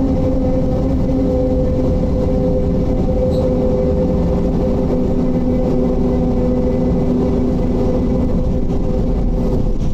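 Diesel engine of a Mercedes-Benz O-500UDA bus running steadily at constant speed, with an even low rumble and a steady hum.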